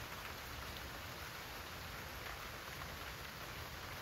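Steady rain falling on banana leaves and garden foliage, an even patter with no single drops standing out.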